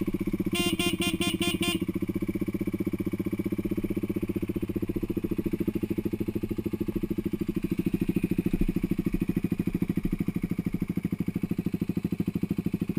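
A vehicle engine idling steadily with an even, fast pulse. About a second in there is a quick run of about six short beeps.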